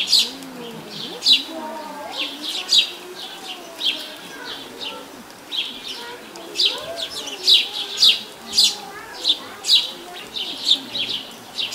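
Small birds chirping over and over in short, quick notes, several a second, with a faint murmur of voices underneath.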